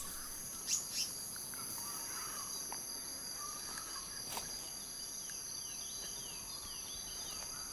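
Steady high-pitched insect trilling. A few short bird chirps come about a second in, and a bird gives a run of quick falling notes about midway.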